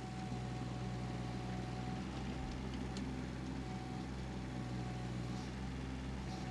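An engine running steadily at idle: an even, low, unchanging hum.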